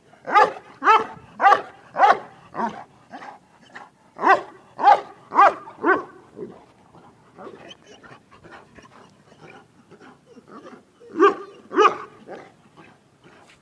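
Large bully dog barking in quick runs of about two barks a second: five barks, a short break, four more, then several seconds of softer sounds and two more loud barks near the end.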